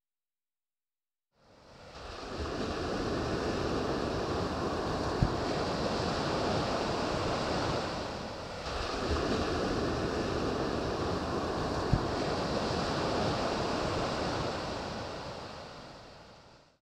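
Ocean surf breaking and washing up a pebble beach: a steady rush that fades in after about a second and a half, eases briefly about halfway, and fades out near the end.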